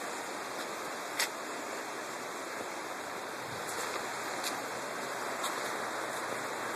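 River rushing over riffles below the bridge: a steady hiss of moving water, with one brief click about a second in.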